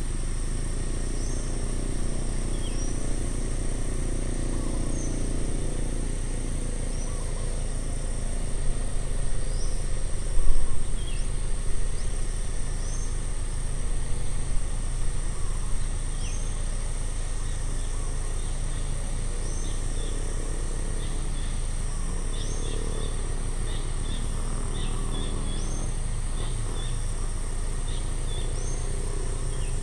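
Outdoor ambience: a steady high insect drone with birds chirping repeatedly in short upward-sweeping calls, over a low rumble that swells and grows louder for several seconds around the middle.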